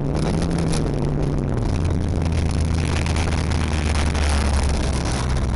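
Lada folkrace car's four-cylinder engine heard from inside the car, running on gravel; about a third of the way in the engine note drops to a lower, steady pitch. A constant rush of gravel and road noise runs under it.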